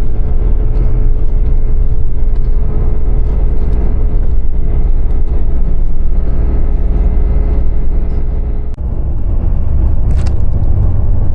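Steady low rumble of a moving road vehicle, with a brief drop in level and a faint steady tone cutting out about nine seconds in.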